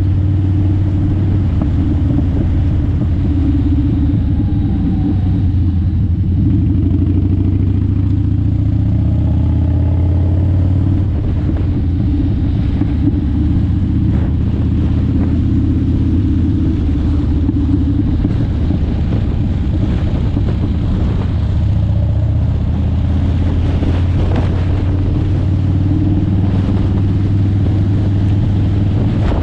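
Engine of a moving road vehicle running at a steady low drone, heard on board with tyre and wind noise.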